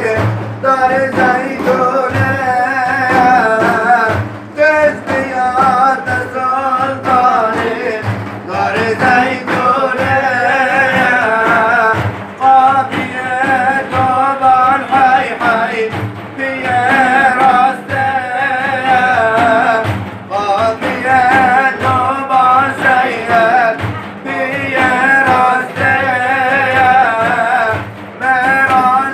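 Male voice singing a Sufi devotional hymn (ilahi) in long, ornamented, wavering melodic lines over a steady low beat.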